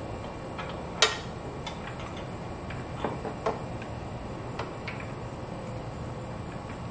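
A few scattered light metallic clicks and taps of a ratchet wrench on a 10 mm bolt as the battery tie-down is unbolted, the sharpest about a second in, over steady background noise.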